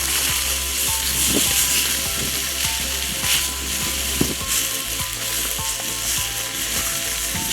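Hot dogs sizzling in a pan on a camp stove, a steady frying hiss, with background music underneath.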